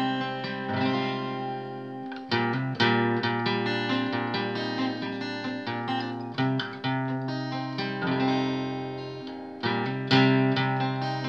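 Capoed steel-string acoustic guitar played solo, chord notes picked and left ringing into each other, with a few harder-struck chords about two seconds in, mid-way, and near the end.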